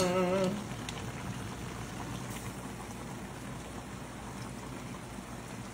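Pork belly simmering in its sauce in a frying pan on the gas stove, a steady bubbling hiss. It opens with a brief hummed voice sound and a light clink or two of a spoon against the pan.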